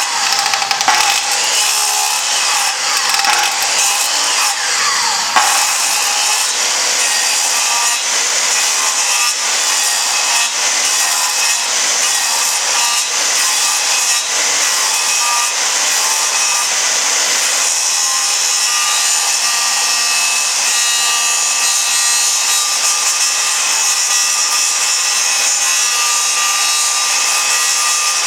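Circular saw running steadily and cutting through wood, with a high motor whine under the noise of the blade.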